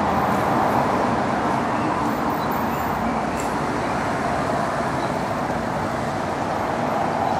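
Steady city road traffic noise.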